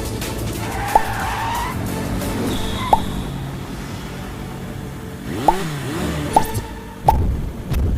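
Film action-scene soundtrack: background music layered with sound effects, including cars and tyre squeal, punctuated by about five short sharp hits.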